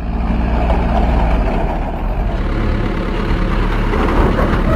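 Backhoe loader's diesel engine running steadily with a low hum while the machine works; its low note shifts about a second and a half in.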